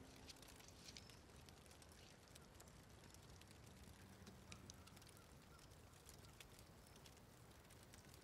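Near silence with faint, scattered crackles from a small wood campfire.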